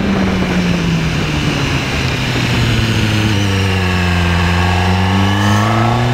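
Engine of the camera vehicle running under load on a mountain road: its pitch drops over the first couple of seconds as it slows, holds low, then rises again near the end as it accelerates. Steady wind and road noise underneath.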